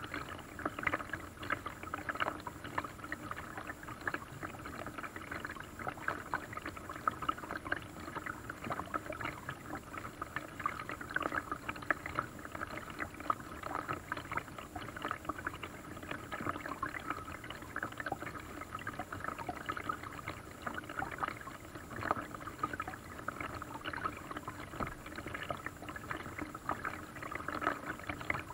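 Lake water lapping and splashing around a small paddle boat, a continuous patter of small splashes.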